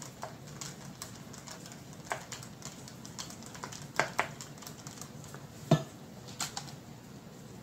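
Irregular light plastic clicks and taps as powdered chickpea egg replacer is shaken from a plastic pour-spout bottle into a plastic measuring cup, with one sharper knock near the end.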